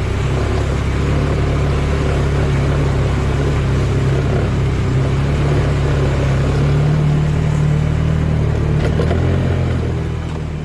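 A vehicle engine running steadily, its pitch shifting up slightly about seven seconds in.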